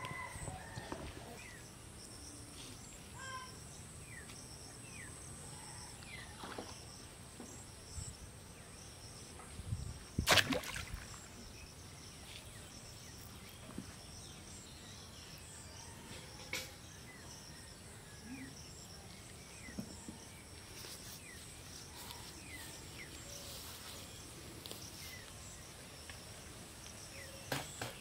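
Rural pond-side ambience: a steady high insect drone and scattered faint bird chirps. A few short, sharp knocks or splashes stand out over it, the loudest about ten seconds in.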